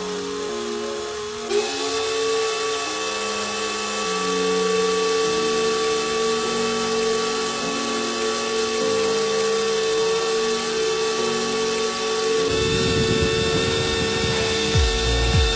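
Small electric motor of a homemade mini air conditioner running with a steady whine, which steps up in pitch and loudness about a second and a half in, over background music with a changing bass line; a beat comes in near the end.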